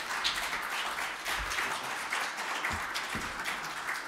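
An audience applauding: a steady patter of many hands clapping.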